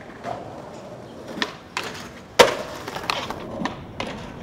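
Skateboard rolling on concrete with a series of sharp board clacks and slaps, the loudest about halfway through.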